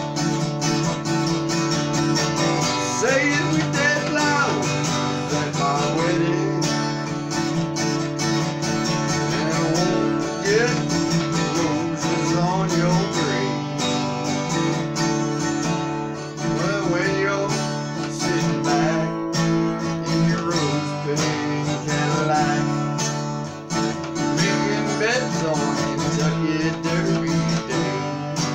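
Steel-string acoustic guitar being strummed, playing chords in a steady rhythm.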